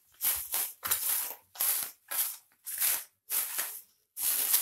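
Plastic bubble wrap crinkling as it is worked off a small plastic power bank case: a string of short crackly bursts, about two a second.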